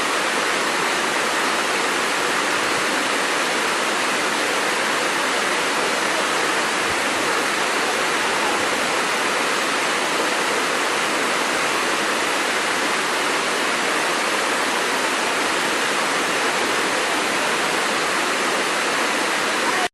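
Waterfall: a steady, even rushing of falling water, with little deep rumble.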